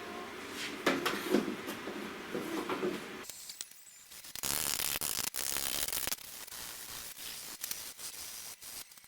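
Clatter of metal being handled, then about four seconds in an electric arc welder crackles and sizzles for about two seconds as a tack weld is laid, followed by a fainter hiss with scattered ticks.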